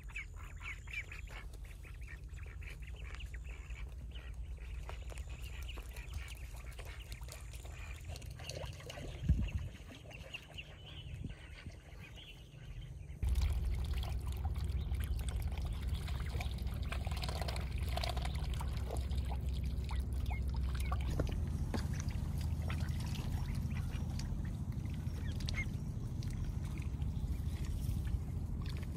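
Ducks and ducklings calling, over a steady low rumble that gets louder about halfway through; a single sharp knock about nine seconds in.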